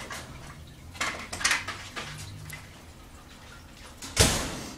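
A few short rustling, brushing noises, the loudest near the end, with no meowing.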